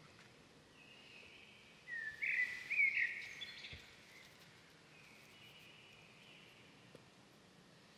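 Birds chirping: a few short whistled calls with quick upward slides, loudest about two to three seconds in, with fainter calls before and after, over faint background noise.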